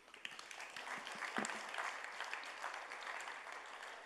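An audience applauding. The clapping starts right away and slowly dies down toward the end.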